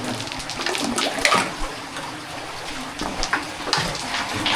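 Shallow cave water splashing and trickling, with several short, sharper splashes.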